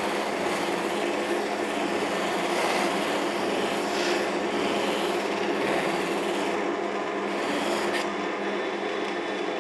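Wood lathe running at about 1100 RPM with an unstitched cloth buffing wheel loaded with brown buffing compound, a wooden bowl held against the wheel: a steady rubbing hiss of the wheel polishing the oiled surface over the lathe's motor hum.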